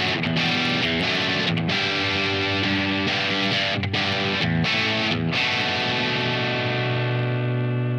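Soloking MT-1 Thinline electric guitar played through overdrive: distorted chords and short riffs, then a chord struck about five seconds in and left to ring.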